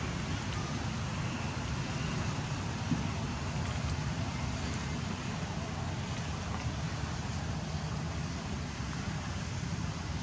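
Steady low rumbling background noise, with no distinct events standing out.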